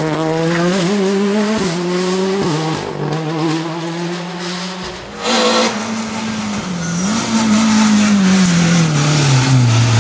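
Peugeot 106 rally car's engine revving hard with quick pitch steps between gears. There is a brief loud burst about five seconds in, then the engine note falls steadily as the car slows for a bend.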